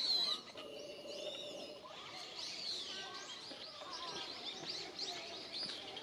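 Small wild birds chirping and twittering, many short high calls overlapping one another.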